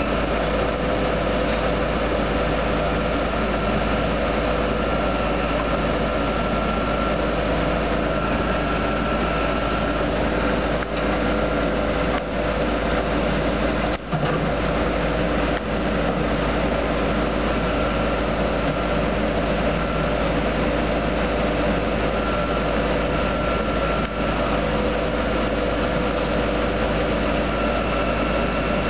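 Engines of a truck-mounted drill rig and a mud shaker system running steadily, a constant drone with a high held tone that fades in and out.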